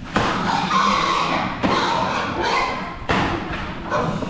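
Pigs being herded in a concrete pen: several sudden thuds and scuffles from the animals, with a plastic sack swishing as it is waved at them.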